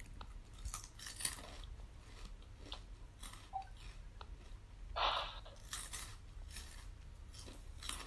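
Crunchy food being bitten and chewed close to the microphone: scattered crisp crackles, the loudest about five seconds in.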